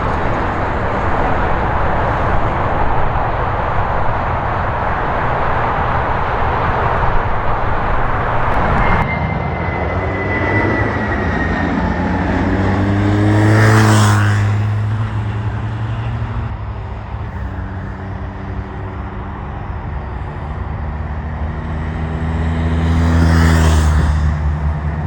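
A steady rushing noise that cuts off abruptly about nine seconds in, then two road vehicles driving past one after the other, each rising and fading in pitch and loudness as it goes by.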